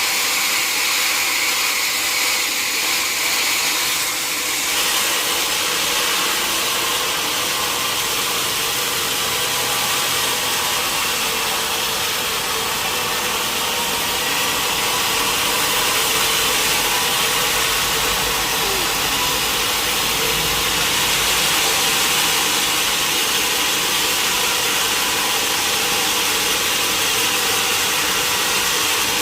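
Sawmill machinery running steadily: a constant motor hum under a loud hiss. A deeper rumble joins for a few seconds a little past the middle.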